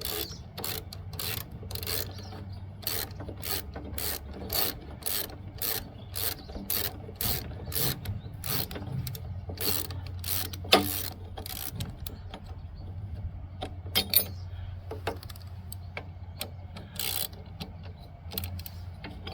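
Socket ratchet wrench clicking in even strokes, about two a second, as a hex-head bolt on the mower's belt-pulley bracket is backed out. The strokes thin out about halfway through, with one sharper metallic clank among them.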